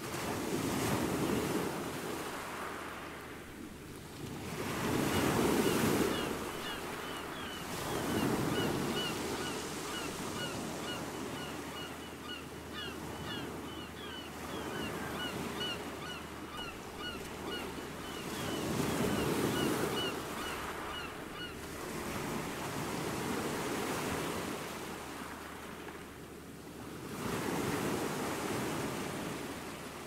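Small waves breaking and washing up a sandy beach, the surf swelling and easing every few seconds. From about five seconds in until about twenty-one seconds, a run of short high chirps repeats about three times a second over the surf.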